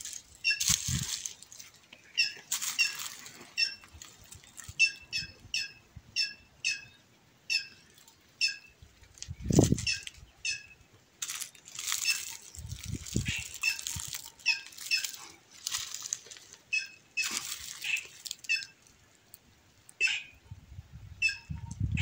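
White-naped jay (cancão) calling: a long series of short, repeated notes, about one or two a second, with harsher noisy bursts mixed in. A few dull low thumps in between, the loudest about nine and a half seconds in.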